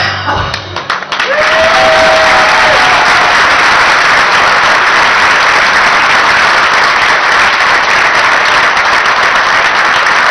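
Audience applauding. The clapping builds up about a second in, right after the last sung note, and then holds steady and loud.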